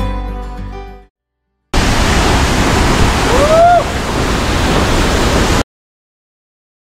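Background music fading out, then after a brief silence about four seconds of loud, steady rushing noise that starts and stops abruptly, with one short rising-then-falling whistle-like call in the middle.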